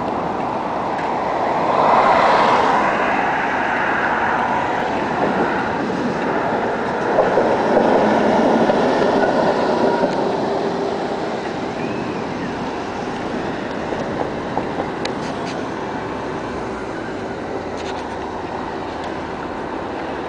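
Konstal 105N-series tram running past on its track, a continuous rumble of wheels on rail that swells twice, with a few sharp clacks around the middle as the wheels cross rail joints.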